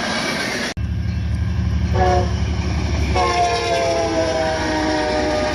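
A train rumbling past, then, after an abrupt cut, a locomotive's throbbing engine with a short horn blast followed by a long multi-note horn blast that sags slightly in pitch.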